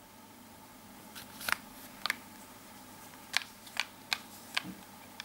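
Sharp clicks and taps from a blush compact being handled and opened, about seven of them spread over a few seconds.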